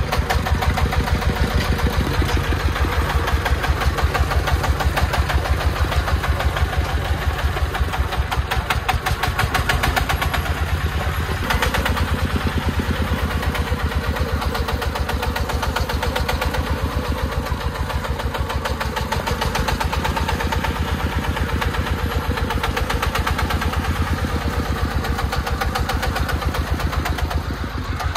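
Công nông three-wheeled dump truck's single-cylinder diesel engine running steadily as the loaded truck drives over rough ground, with a fast, even beat of firing strokes.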